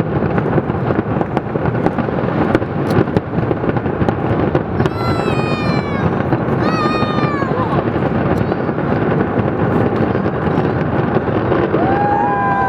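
Fireworks display: rapid pops and crackles over the steady noise of a large crowd, with two high falling calls about five and seven seconds in.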